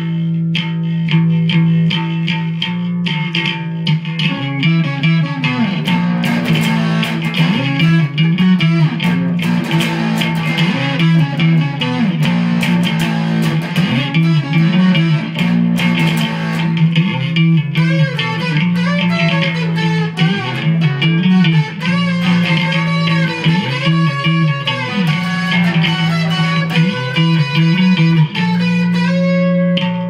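Background music: a guitar instrumental of plucked notes that bend in pitch, over a steady low drone.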